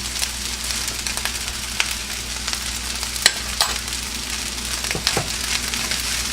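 Fried rice sizzling in a hot pan as it is stirred, with the spatula clicking against the pan now and then.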